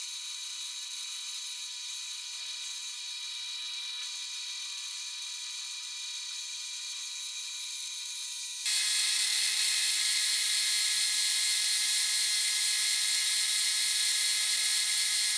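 Central Machinery benchtop lathe, converted to stepper-motor feed, running and turning a metal rod: a steady whine of motor and drive. It grows louder and fuller about two-thirds of the way in.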